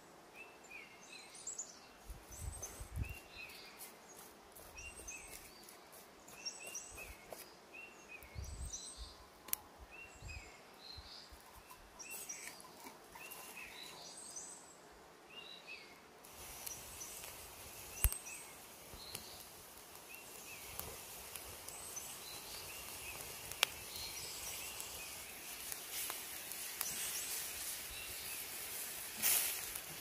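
Small birds singing repeated short phrases. About halfway a steady hiss joins them, with a few sharp cracks from the wood fire burning under the pan.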